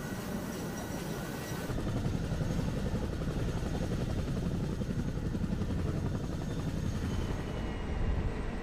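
CH-47 Chinook tandem-rotor helicopter running on the ground with rotors turning: a steady din of rotor and turbine noise.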